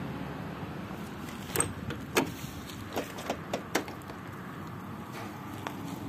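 A handful of short, sharp clicks and taps over a steady outdoor background hiss. The two loudest come about a second and a half and two seconds in, then a quick cluster of four around three to four seconds in, and a last one near the end.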